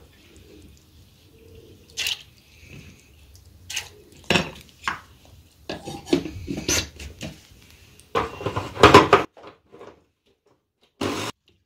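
Kitchen clinks and taps of a steel spoon and measuring cup against bowls and a mixer-grinder jar as water is scooped and dripped over soaked urad dal. Later comes a louder rattle as the jar is fitted onto the mixer base, and then the sound cuts off suddenly.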